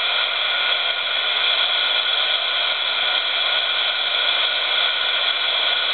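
Heat gun blowing at about 200 degrees: a steady, loud rush of air with a few thin high tones.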